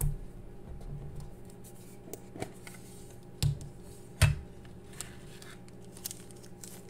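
A metal pen tin being handled and opened: a few sharp clicks and knocks of the tin and its lid, the loudest about four seconds in. Near the end comes light crinkling as a plastic sleeve is slid off the pen.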